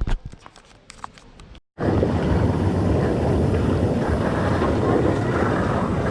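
A few faint clicks and knocks, then, after a sudden cut, a loud, steady rushing noise that is heaviest in the deep range.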